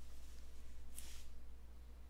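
A brief rustle from a trading card's plastic sleeve being handled, about a second in, over a low steady hum.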